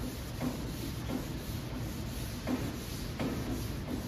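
Wet sanding by hand: an 800-grit sandpaper block rubbing over a car door's clear coat in a series of swishing back-and-forth strokes. The paper was not pre-soaked, so it grabs a little.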